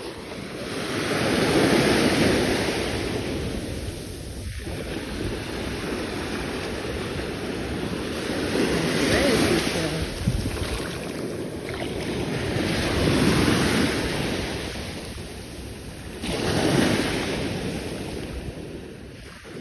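Ocean surf washing onto a beach, the noise of the waves swelling and fading every few seconds, with wind noise on the microphone.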